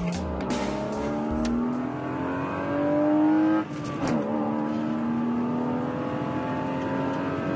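BMW E36 325i's M50B25 2.5-litre straight-six with VANOS and a K&N intake kit, heard from inside the cabin under hard acceleration. The engine note climbs steadily, drops sharply with an upshift a little over halfway through, then climbs again in the next gear.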